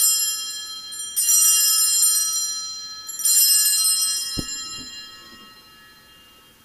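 Altar bells rung at the elevation of the chalice during the consecration: a cluster of small bells shaken in three rings about two seconds apart, each ringing bright and high and fading, the last dying away near the end. A soft low thump sounds about four seconds in.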